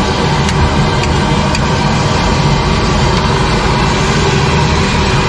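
Chicken kabab deep-frying in a large kadai of hot oil, sizzling steadily over a constant low roar, with a few light clicks.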